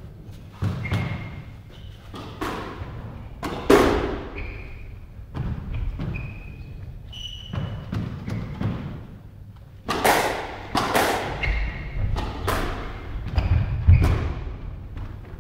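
A squash rally: an irregular series of sharp hits as rackets strike the squash ball and it smacks against the court walls, each hit echoing in the enclosed court, with short squeaks of sneakers on the wooden floor in between.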